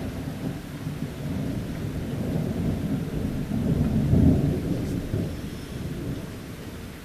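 Rolling thunder: a deep rumble that builds for about four seconds, peaks, then dies away, with rain faintly behind it.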